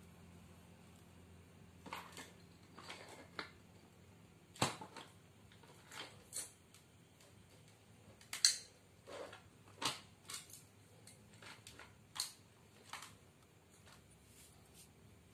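A dozen or so light, sharp metallic clicks and clinks, scattered irregularly: small metal engine parts and hand tools being handled on a workbench. The loudest comes a little past halfway.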